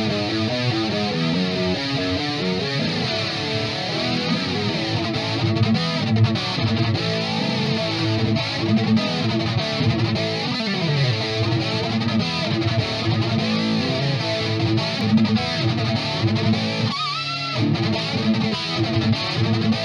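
Electric guitar riffing through a Crate GT-200 amp head with its chorus on, overdriven by a Boss SD-1 pedal. About seventeen seconds in the riffing stops for a moment while one held note rings with a wavering pitch, then the riffing resumes.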